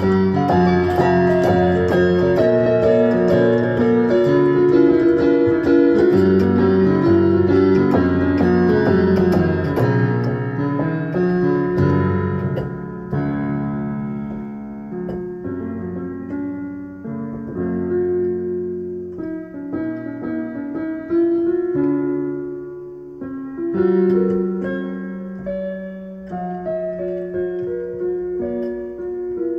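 Piano music. It is dense and busy for roughly the first twelve seconds, then thins to slower, sparser notes that ring out.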